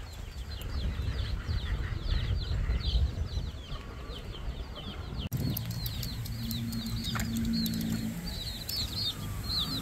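A flock of free-roaming chickens with little chicks, giving many rapid, high, short downward chirps that overlap throughout, over a low rumble; the sound breaks off for an instant about five seconds in.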